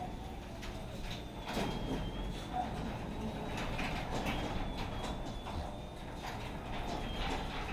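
Irregular mechanical clicks and rattling over a low steady hum.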